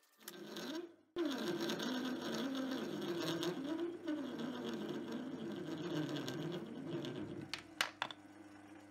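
Metal lathe running with a small brass workpiece spinning in its chuck: a steady machine sound with a tone that wavers up and down. It is joined by a few sharp clicks near the end, then settles to a quieter steady hum.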